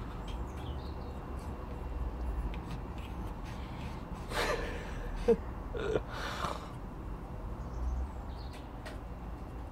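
A Chihuahua huffing out two breathy snorts about two seconds apart, with a short squeaky whimper between them, over a low steady rumble.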